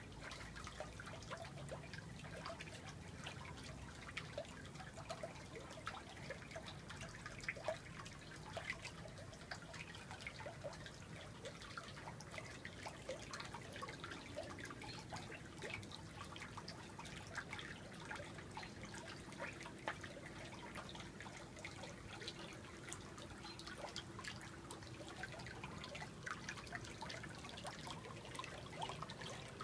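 Water trickling and dripping into a turtle pool: a continuous faint patter of small drips over a faint steady low hum.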